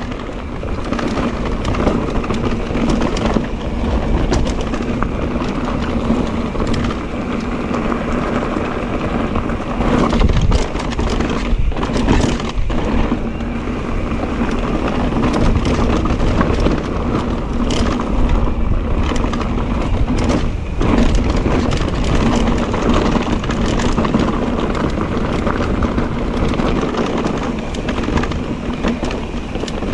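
Mondraker Crafty electric mountain bike ridden over rough trail: a steady motor hum under the rattle and clatter of the tyres and frame on rocky ground.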